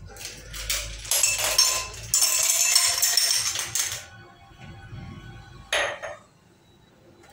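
Ice cubes poured into a stemmed cocktail glass, clinking and clattering against the glass and each other for about three seconds, then a single short knock.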